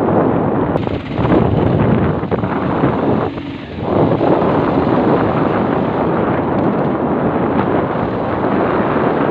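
Wind buffeting the microphone during a motorbike ride, with the bike running under it. The rush dips briefly about three and a half seconds in.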